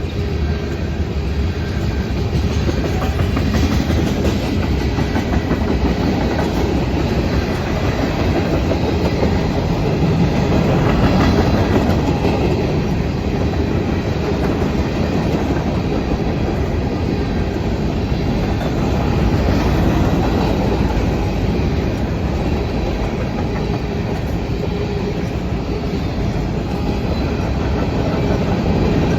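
Norfolk Southern manifest freight train rolling past, a steady rumble of steel wheels on the rails.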